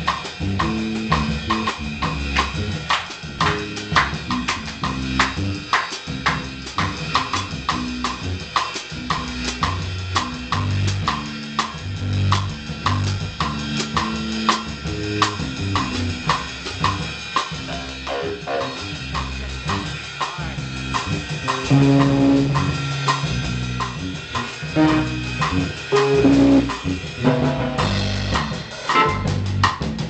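A live band playing with a drum kit and a keyboard. The drums keep a steady beat under low bass notes and changing chords.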